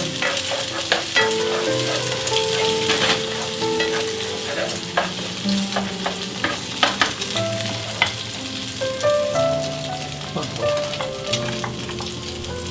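Food sizzling as it is stir-fried in a pan, with frequent sharp clicks and scrapes of a spatula against the pan, over background music.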